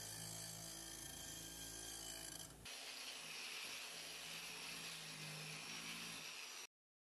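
Bench grinder running with its wheel against rusty iron. About two and a half seconds in it changes abruptly to a Bosch angle grinder with a wire cup brush scrubbing rust off a flat iron plate, a steady hiss over the motor. The sound cuts off suddenly near the end.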